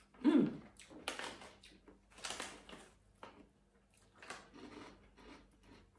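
Plastic snack packet crinkling and rustling in several short bursts as it is opened and a snack is pulled out. A brief falling voice sound comes near the start.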